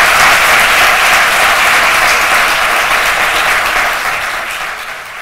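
Audience applauding, full and steady, then thinning and fading out near the end.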